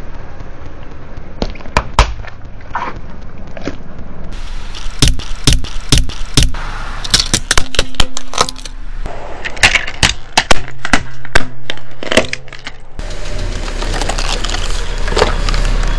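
A car tyre rolling slowly onto small objects on asphalt and crushing them, with many sharp cracks, snaps and crunches. Toward the end a steadier rumble of the tyre and car runs under the cracking.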